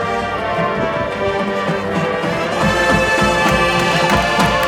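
Marching band playing: brass holding chords over drums and front-ensemble percussion, growing louder about halfway through as the low drum hits thicken.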